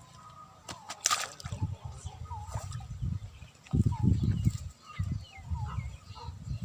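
Birds chirping with short, bending calls, over irregular low rumbling thumps, with one sharp click about a second in.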